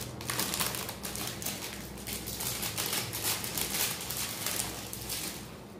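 Thin clear plastic wrapping crinkling and rustling in quick irregular bursts as it is handled and pulled open from around a packed piece of jewellery.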